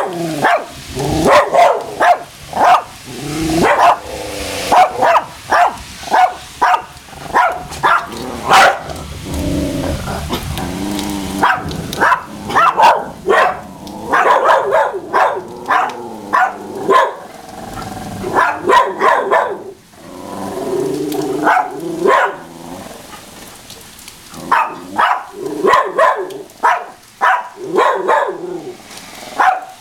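Dogs barking in quick runs of sharp barks, worked up by the rain, with a couple of longer, lower drawn-out stretches, about a third and two-thirds of the way through.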